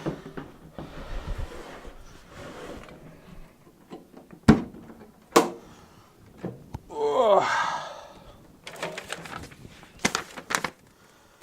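Lid of a steel-cased Engel fridge being opened and its packed contents handled: a few sharp clicks and knocks of the lid and latch, then crinkling of plastic and paper packaging near the end.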